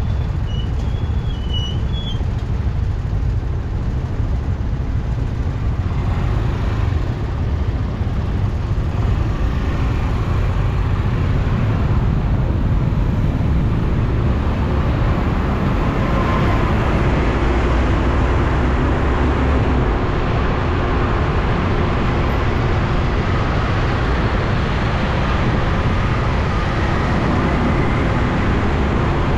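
Steady city street traffic: engines of motor scooters and cars running with road rumble, heard from within the moving traffic, growing a little louder after about six seconds.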